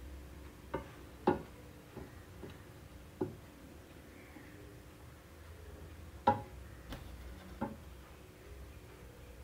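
Hard seashells clicking and knocking against each other and a glass shelf as they are handled: about seven sharp, irregular taps, the loudest about a second in and about six seconds in, over a low steady hum.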